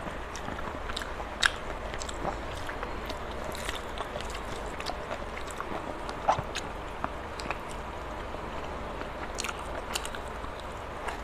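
Close-up eating sounds: chewing and biting on mouthfuls of rice and chicken curry eaten by hand, with scattered sharp clicks and crunches.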